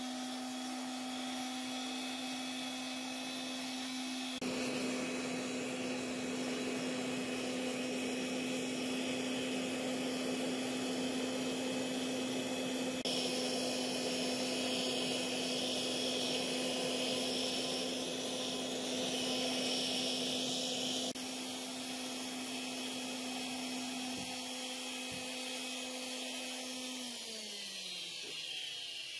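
Gas forge burner running with a steady rushing noise and a low steady hum. Near the end the gas valve is turned down, and the hum slides down in pitch and fades.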